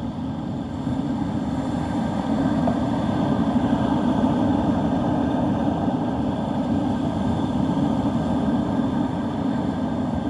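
Storm wind buffeting the microphone: a steady low rumble that wavers in strength and grows a little louder over the first couple of seconds.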